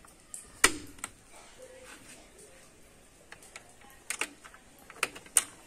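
Irregular sharp clicks and knocks, the loudest less than a second in, as parts of a top-loading washing machine's tub are fitted back into place during reassembly.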